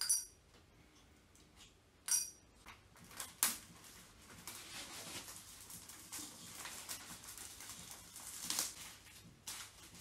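Pins being pulled out of a balsa-wood model fuselage on the building board and set down, with a few light metallic clinks, the first two ringing briefly, over soft rustling of the cellophane covering as the frame is handled.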